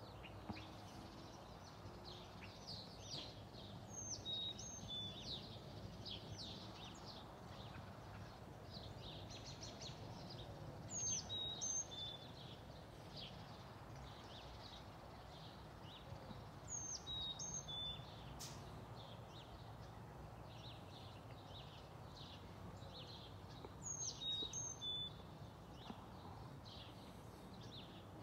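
Songbirds chirping, with one bird repeating a short high phrase of falling notes about every six or seven seconds, over a faint, steady low rumble.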